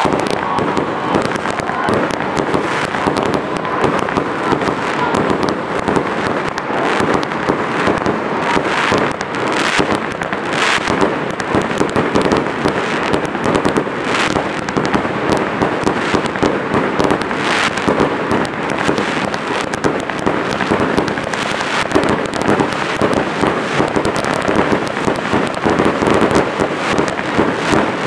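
Fireworks going off in a continuous, rapid barrage of bangs and crackling, with a few louder bangs scattered through.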